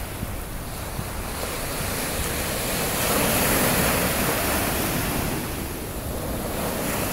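Ocean surf breaking and washing up the shore, a steady rushing wash that swells louder about halfway through as a wave breaks close by.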